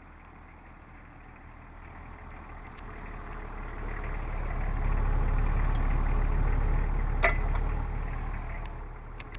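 Mercedes-Benz ML SUV's engine running at close range as the vehicle moves slowly, growing louder to a peak about five seconds in and easing off toward the end. A single sharp crack comes just past seven seconds.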